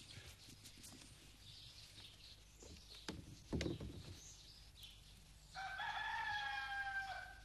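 Rooster crowing once near the end: a single held call of about a second and a half, falling slightly in pitch. A couple of short soft knocks come before it, near the middle.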